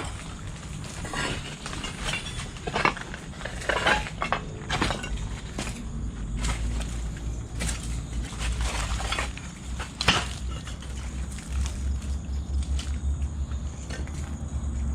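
Footsteps crunching and clicking irregularly over a gritty, littered floor. A low steady rumble builds underneath in the second half and grows louder near the end.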